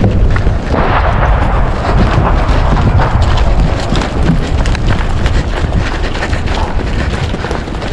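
Running footsteps, with gear jostling, picked up by a body-worn camera on the runner and mixed with a heavy rumble of wind and movement on the microphone.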